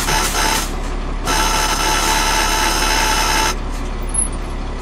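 Cat 3406 diesel in a Ford L9000 truck idling with a steady low hum, while a loud hiss sets in about a second in and cuts off suddenly after about two seconds.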